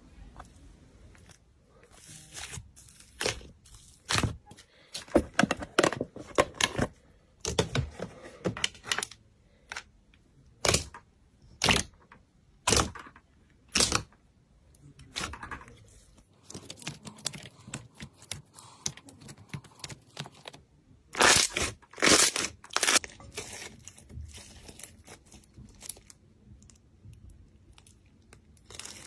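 Slime being squeezed, stretched and pulled apart by hand, giving irregular sharp pops and crackles with brief quiet gaps between them.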